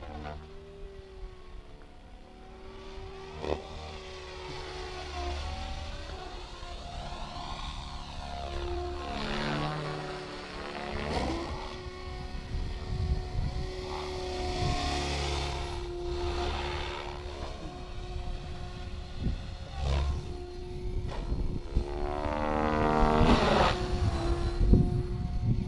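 Electric flybarless RC helicopter flying fast passes. A steady pitched motor-and-rotor whine shifts slightly in pitch, and a sweeping rotor swish swells and fades as the helicopter passes by several times, loudest near the end. Low rumbles of wind on the microphone run underneath.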